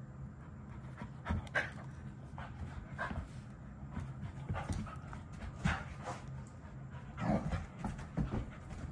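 A dog playing, giving short breathy huffs and pants in irregular bursts, with paws thumping on carpet as it bounces around another dog.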